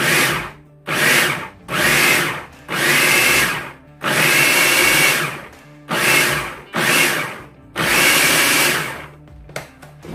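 Food processor pulsing in short bursts of about half a second to a second and a half, about eight times, chopping fresh strawberries down to a puree.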